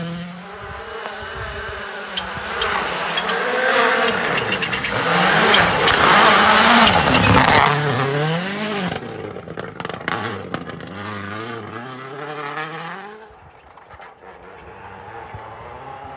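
Hyundai i20 N Rally1 Hybrid rally car's turbocharged four-cylinder engine revving up and down through the gears as the car passes close on a snowy road, the pitch rising and falling with each shift. It is loudest around six to eight seconds in, then fades as the car pulls away into the distance.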